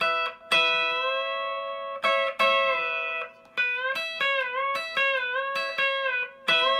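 Electric lap steel guitar in open E tuning, with two-string chords picked under a steel bar while one string is bent up a whole step behind the bar to imitate a pedal steel. Several picked chords ring on, and the bent note glides up and back down a few times.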